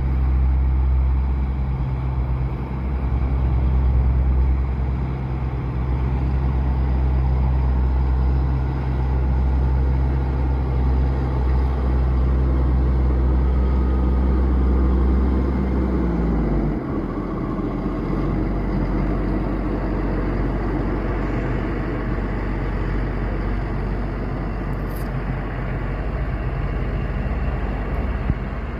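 A Fendt 720 Vario tractor's six-cylinder diesel engine is running steadily under load while ploughing. About sixteen seconds in, its note falls and it becomes quieter, then carries on as a steady, lower drone.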